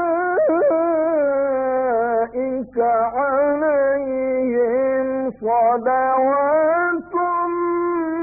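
A man reciting the Quran in a drawn-out melodic style, one voice holding long ornamented notes that waver in pitch, broken by a few brief pauses for breath.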